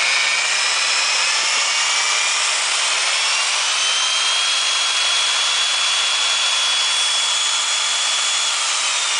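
Milwaukee 4208-1 magnetic drill press motor running in reverse: a steady whine that climbs in pitch about three seconds in as the variable speed is turned up, holds level, then dips slightly near the end.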